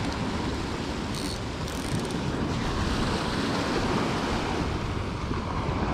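Sea surf washing and breaking over shoreline rocks, a steady rushing wash, with wind buffeting the microphone.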